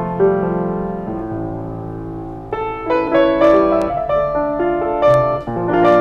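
1975 Yamaha G3E grand piano being played: sustained chords with a melody over them, growing louder and fuller with higher notes about two and a half seconds in.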